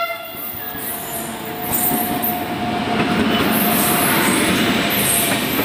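Electric locomotive and passenger coaches rolling in along the platform: a rumble of wheels on rail that builds after about two seconds. A steady wheel and brake squeal runs on top, with sharper high squeaks. The last of a horn blast dies away at the very start.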